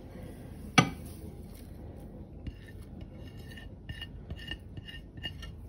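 A ceramic plate knocking and clinking against a glass mixing bowl as spices are tipped and scraped off it into the bowl: one sharp knock about a second in, then a run of light, ringing clinks.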